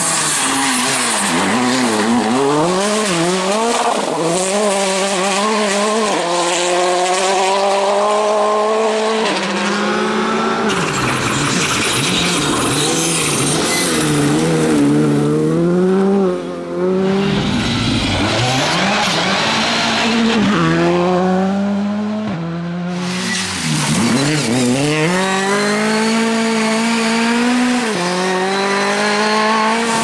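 Rally cars, among them a Škoda Fabia R5, driven flat out on a gravel stage one after another: engines revving up through the gears, dropping in pitch at each upshift, with gravel hissing under the tyres as the cars slide.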